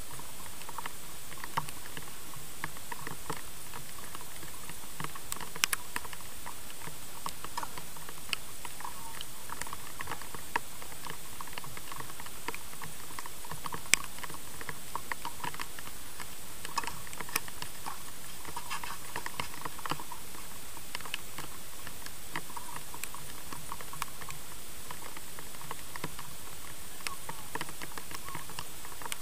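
Tennis ball struck by rackets in a rally, a sharp pop every few seconds, the loudest about halfway through, over a steady hiss with light pattering clicks.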